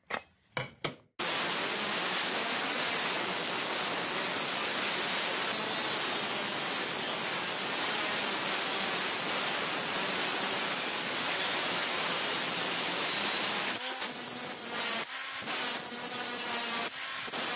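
Cordless angle grinder cutting and grinding the corner of a steel plate held in a vise, a steady grinding hiss with a faint high motor whine. The grinding breaks off briefly a few times near the end.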